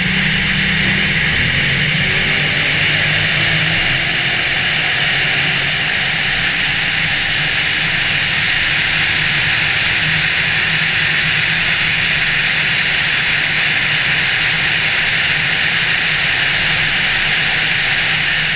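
Steady rush of wind and road noise from a car cruising at highway speed, with a low engine drone underneath.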